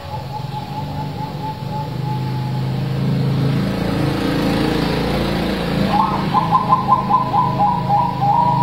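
Caged zebra dove (perkutut) cooing: a quick run of short coo notes, about five a second, starts about six seconds in, over a steady low hum.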